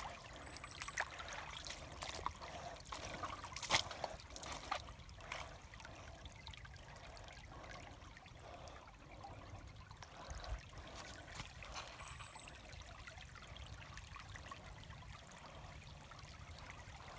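Small shallow creek trickling over rocks, with irregular footsteps and knocks on wet stones and gravel as someone walks along the creek bed. The steps are busiest in the first few seconds, the loudest about four seconds in.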